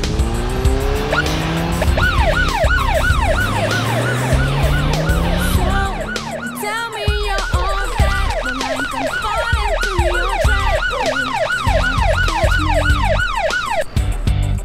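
Police siren yelping, a fast rise-and-fall wail repeating about two and a half times a second, while a car engine revs up over the first few seconds. Music with a stepping bass line plays underneath.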